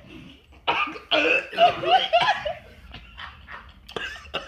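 Hard laughter in a run of short bursts, starting about a second in and easing off about two seconds later, mixed with a man gagging on a foul-tasting jellybean.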